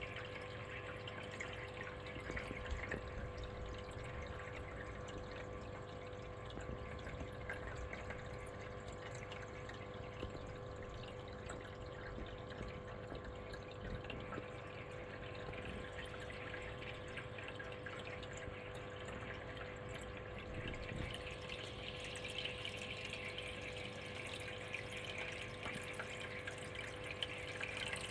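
Aquarium filter running: water trickling and dripping steadily over a constant pump hum.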